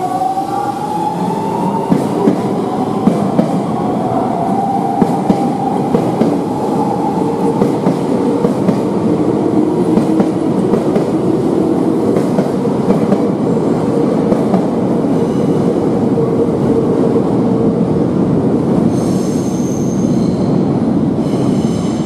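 Nankai electric commuter train accelerating away from the platform. Its motor whine rises in pitch over the first few seconds, and the wheels click over rail joints. A steady rumble and rattle of the cars goes on as the train passes and pulls out.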